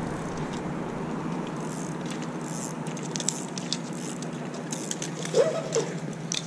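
A freshly landed salmon flapping and being handled, with scattered light taps and rattles over a steady background hiss.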